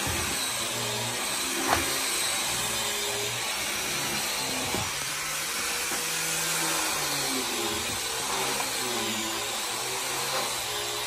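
A woodworking power tool running steadily, with a light knock about two seconds in.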